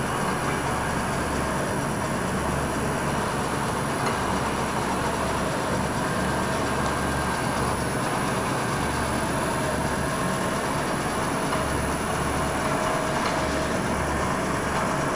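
ACRA 3-axis CNC vertical bed mill running a programmed cycle: a steady mechanical running noise with a low hum that switches on and off several times.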